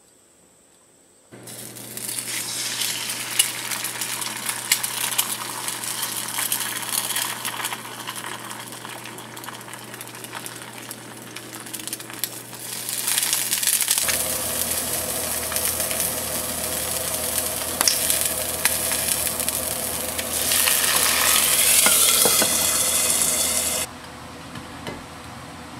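An egg frying in oil in a small nonstick frying pan, sizzling steadily. The sizzle grows louder near the end and then stops abruptly.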